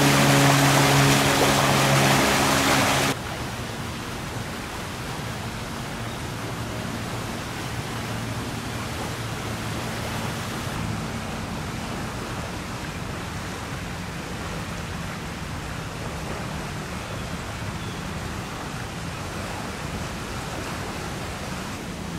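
Rushing floodwater. For the first three seconds it is loud, with a steady engine hum mixed in; then it cuts suddenly to a quieter, steady rush of water with a faint low hum underneath.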